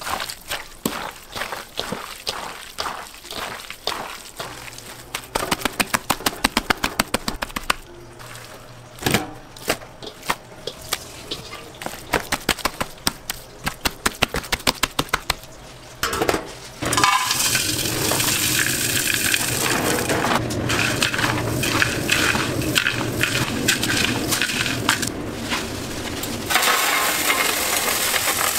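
Gloved hands squeezing and mixing raw chicken pieces in spice powder, a long run of quick wet squelches and clicks. About seventeen seconds in, a steady loud sizzling hiss of deep-frying takes over. Near the end, fried cashew pieces are tipped into a steel tray.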